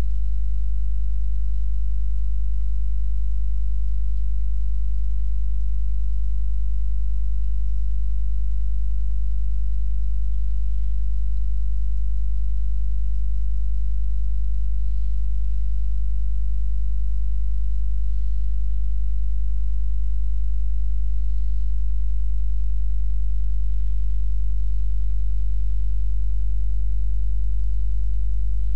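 Steady low electrical hum, one deep unchanging tone with its overtones, with nothing else over it.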